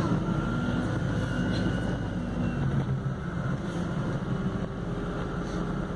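Cabin noise inside a MAN Lion's City Hybrid city bus: a steady low rumble from the drive and the road, with faint thin whining tones above it.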